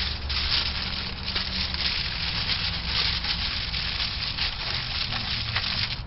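Thin aluminium foil crinkling and crackling continuously as it is folded and crimped shut around a packet.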